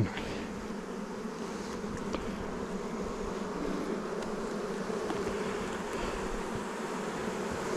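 Honeybees swarming around an opened hive, buzzing in a steady drone; the colony is agitated, a little more worked up than usual.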